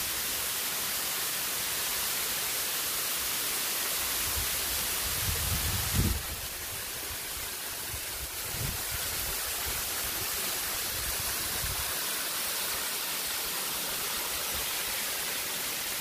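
Tall waterfall, about 50 to 60 metres high, pouring down a rock face into a plunge pool: a steady, full rush of falling water, with some low buffeting about four to six seconds in.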